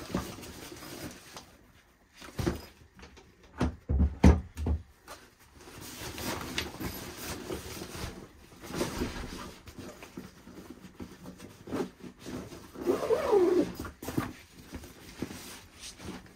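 Handling noises as a BLACK+DECKER cordless chainsaw is packed into its carrying bag: a few knocks early on, then rustling. Near the end comes one short animal call that falls in pitch.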